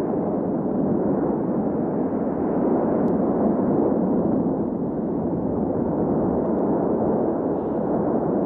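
Lava fountain erupting from a volcanic vent: a steady, dense rushing noise with no separate blasts.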